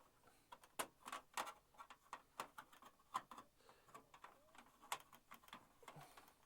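Faint, irregular clicks and taps of hands handling a small plastic LED light fitting and its wiring, about a dozen short sharp ticks spread unevenly.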